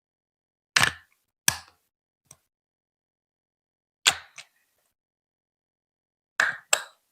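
Marbles clacking against Lego Duplo plastic blocks: a handful of sharp, separate clacks, some in quick pairs, with silence between.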